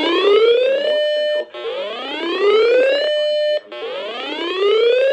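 Electronic whoop alarm tone in an emergency alert broadcast. It sounds three times, about every two seconds: each one sweeps up in pitch, levels off into a short held tone, then cuts off.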